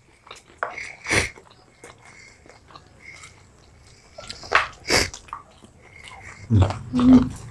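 Close-up biting and chewing of fried chicken lollipops, with scattered sharp bites and smacks, the loudest about a second in and around four and five seconds in.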